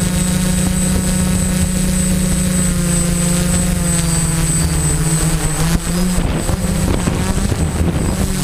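Quadcopter's electric motors and propellers whirring steadily, heard from the GoPro mounted on the craft. The pitch sags slightly about four seconds in, and the sound turns rougher and less even over the last few seconds.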